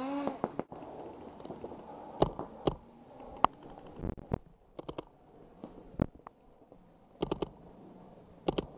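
Paintball markers firing: sharp single pops and quick strings of three or four shots.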